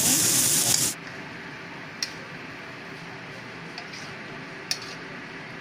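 Chopped taro stems sizzling as they stir-fry in oil in a metal wok, loud for about the first second and then cutting off suddenly. A much quieter low hiss follows, with a few sharp clicks of a metal ladle against the pan.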